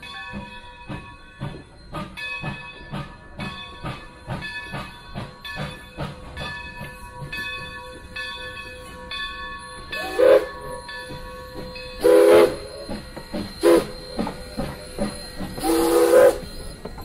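Santa Maria Valley No. 205 steam locomotive working past with a freight train, its exhaust chuffing steadily at about two to three beats a second. Over the last seven seconds its steam whistle sounds in four blasts, short and long, with a rush of steam hiss.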